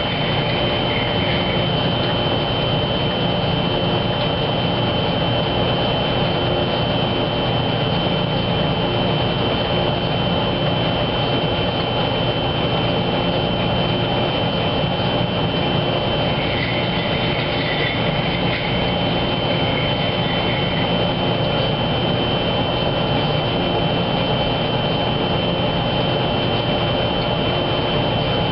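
Wascomat Junior W73 commercial front-load washer running steadily: an even motor hum with a constant high whine over it.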